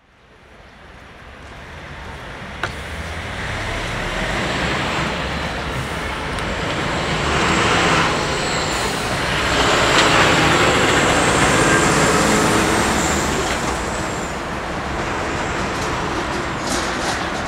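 City street traffic fading in from silence, then a steady run of engines and tyre noise, including a large truck passing. It is loudest in the middle, with a single sharp click a few seconds in.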